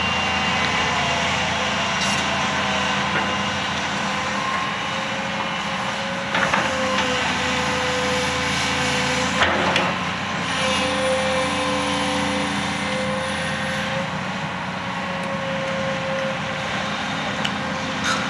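Heavy diesel machinery running steadily with a constant whining tone, and two sharp metallic clanks about six and a half and nine and a half seconds in.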